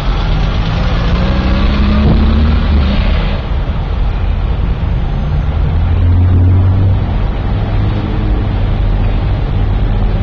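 A fire engine's engine and pump running steadily, with a low rumble that rises briefly in pitch about two seconds in, under a broad hiss from the hose spraying water onto a smouldering car.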